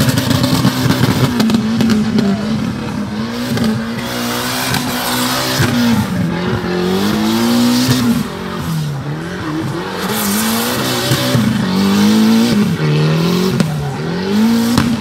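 Modified Proton Putra's engine revving up and down in repeated swells while the car drifts, with tyres squealing and spinning.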